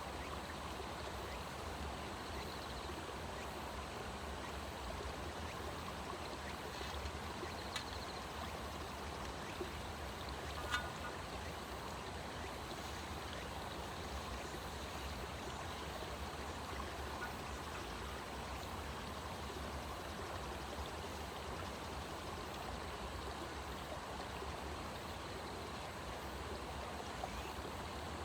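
Steady rushing of running water, with one short click about ten seconds in.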